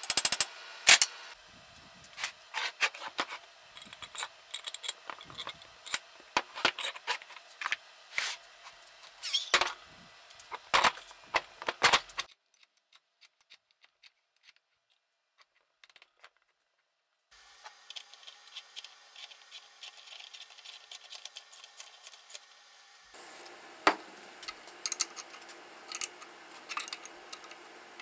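Irregular metal clinks and taps from hand tools and parts on the cast-iron swivel base of a Reed 208 vise, with a silent gap in the middle before the clinking picks up again.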